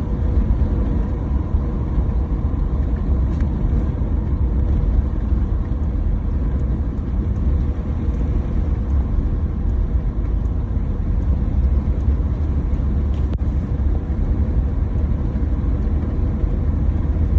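A van driving along the road: a steady low rumble of engine and road noise.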